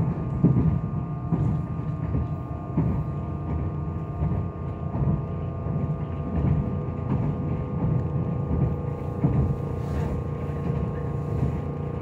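Meitetsu 2000 series μSKY electric train running at speed, heard from inside the car: a steady low rumble of wheels on rail with a constant hum and a few short knocks.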